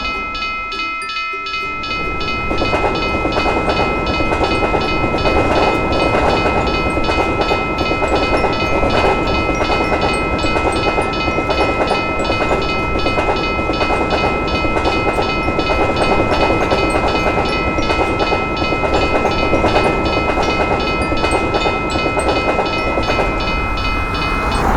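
A train passing over a level crossing, its wheels clattering rhythmically on the rails, while the crossing's warning bell rings on with an evenly repeating ding. Both stop suddenly near the end.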